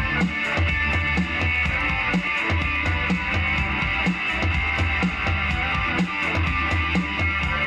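Rock band playing an instrumental passage: guitar and drum kit with a steady beat.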